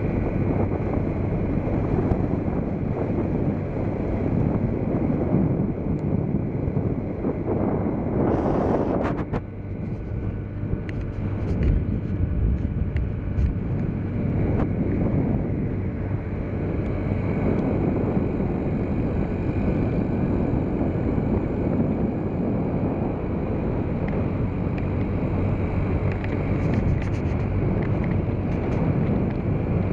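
Wind buffeting the microphone on a moving motorbike, with the bike's engine running steadily underneath. A louder gust about eight seconds in.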